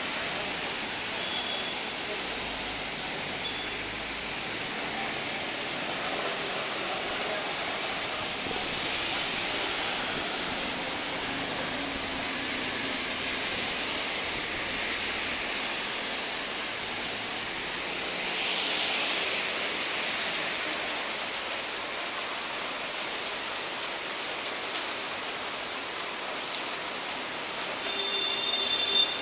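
Steady rain falling, a continuous even hiss that swells briefly about two-thirds of the way through. A short pitched tone sounds near the end.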